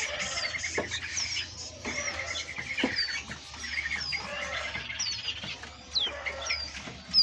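Many caged songbirds calling at once: repeated short, high, falling whistles over fast chattering trills, with a few brief knocks.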